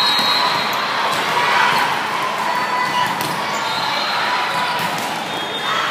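Echoing din of a big sports hall full of volleyball courts: crowd chatter and shouts, with a few ball hits and shoe squeaks of a volleyball rally.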